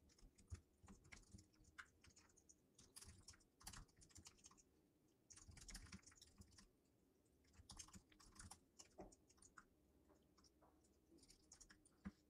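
Faint typing on a computer keyboard: quick runs of key clicks in several short bursts, with brief pauses between them.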